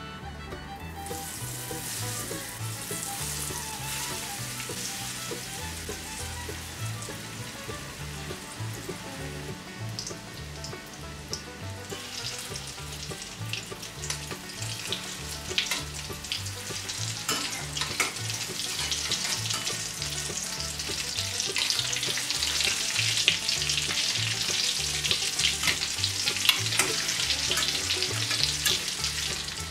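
Breaded potato croquettes shallow-frying in hot oil in a stainless steel pan: a steady sizzle that starts about a second in and grows louder partway through, with frequent sharp pops and clicks as they are turned with tongs.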